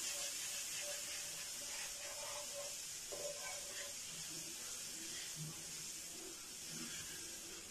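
Faint steady hiss as a wire whisk stirs a milk and flour sauce heating in a non-stick frying pan.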